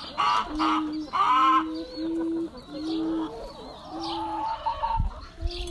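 Hens clucking, a run of drawn-out calls repeating about once a second, with sharper squawks in the first second and a half.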